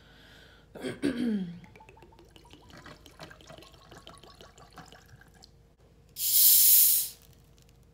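A loud hiss of a fizzy drink, about a second long, near the end. It follows a short voice sound that falls in pitch about a second in and faint small handling clicks.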